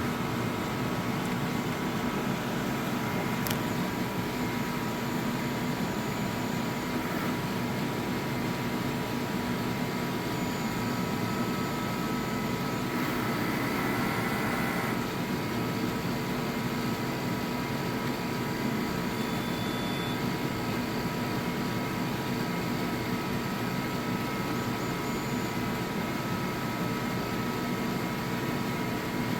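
Steady machine hum with a few constant tones, from a DTF roll-film printer running its print-head cleaning cycle. A short hiss comes in about thirteen seconds in and lasts about two seconds.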